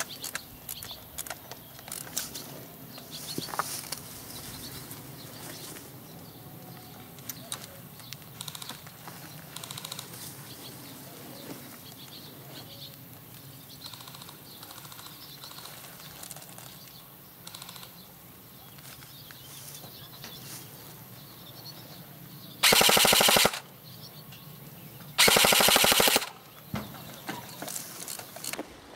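Airsoft rifle firing two short full-auto bursts near the end, each lasting about a second, as a rapid, even rattle of shots. Before them there is only quiet outdoor background with occasional small clicks and rustles.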